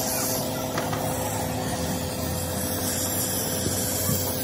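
Gas torch flame hissing steadily as it melts the lead lugs of lead-acid battery plates.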